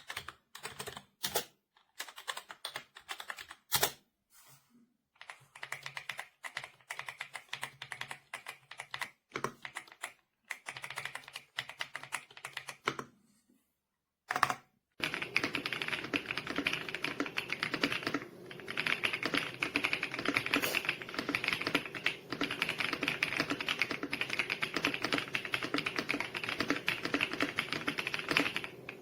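Typing on an AJAZZ x Attack Shark X85 gasket-mount mechanical keyboard. Scattered keystrokes and short runs with pauses fill roughly the first half. About halfway through it turns to fast, continuous typing.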